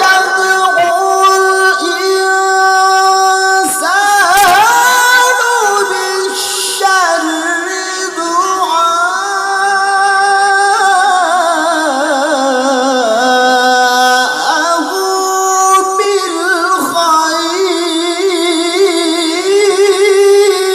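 Male qari's voice in melodic Quran recitation (tilawah), drawing out long ornamented notes with a wavering trill. The melody sinks lower in the middle and rises back again.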